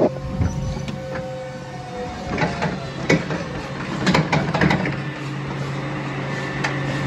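Electric warehouse lift truck running with a steady low hum, with several clunks and rattles in the middle.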